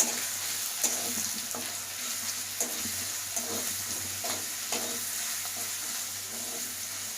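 Crushed ginger and garlic sizzling in hot mustard oil in a kadai, with a spatula stirring and scraping the pan in irregular strokes about once a second.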